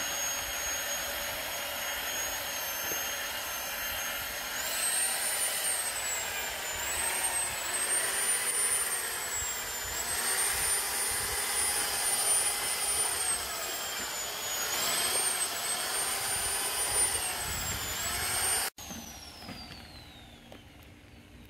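Electric drill spinning a paddle mixer through a bucket of cement-modified asphalt patching mix: a steady motor whine that rises in pitch about four seconds in, then dips and recovers over and over. It cuts off abruptly near the end.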